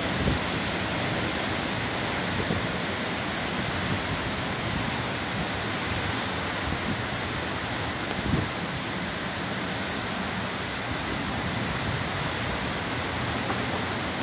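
Torrential thunderstorm downpour driven by strong wind, a steady dense hiss of rain. Two brief low thumps come through, one right at the start and one about eight seconds in.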